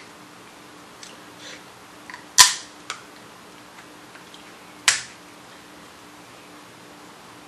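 Crab leg shell snapped open by hand, close to the microphone: two sharp, loud cracks about two and a half seconds apart, a smaller click just after the first.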